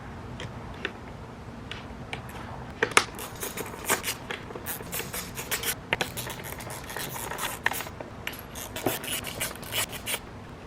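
Hand work on metal: irregular clicks, taps and scrapes of tools and parts, coming thick and fast from about three seconds in.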